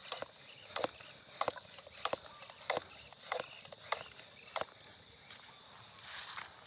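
Small handheld pressure sprayer being pumped by hand: a short, sharp sound with each stroke of its plunger, about nine strokes at roughly one every two-thirds of a second, dying away about five seconds in, as the bottle is pressurised for spraying.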